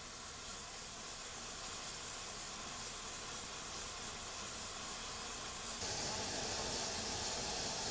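Gas pressure-welding burner flame hissing steadily while the flame is being adjusted. It gets louder and fuller about six seconds in.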